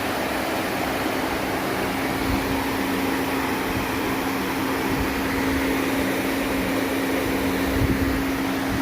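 A machine running steadily: a constant low hum over an even hiss.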